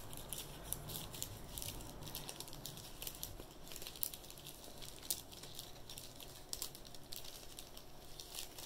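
Faint rustling and small crinkling clicks of a printed cloth bandana being unfolded and handled.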